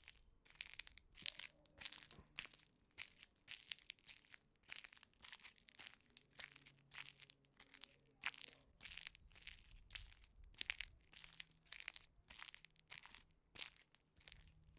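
Footsteps crunching on gravel, one step after another at a steady walking pace.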